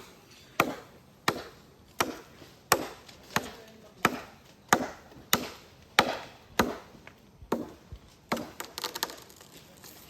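A hand-swung blade chopping into silver oak wood in a steady rhythm, about three strikes every two seconds, ending in a quicker run of lighter blows near the end.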